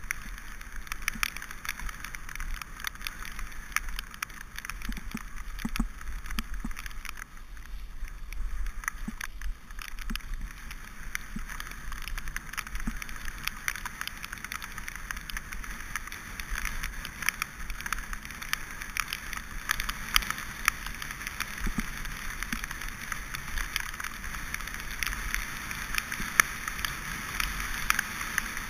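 Mountain bike rolling down a wet, muddy dirt track: steady tyre hiss and spatter from the wet surface, with a constant crackle of small clicks and knocks from grit and the bike rattling, over a low rumble.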